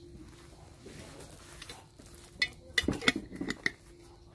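Dishes and cutlery clinking: a quick run of sharp, ringing clinks in the second half.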